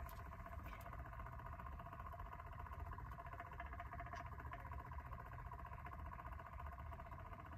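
Faint steady hum of a small cup-turner motor slowly turning the tumbler.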